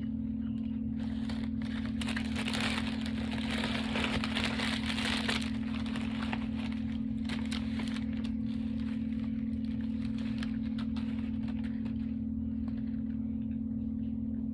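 Food wrapper crinkling and rustling as it is handled, heaviest from about two to five seconds in, with scattered small clicks, over a steady low hum.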